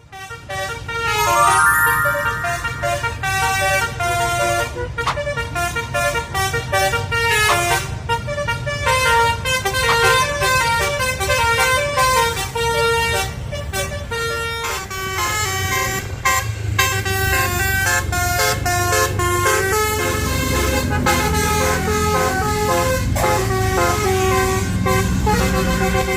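Basuri telolet multi-tone bus horn playing a long run of melodic notes that step up and down in pitch, over the bus engine's steady low running.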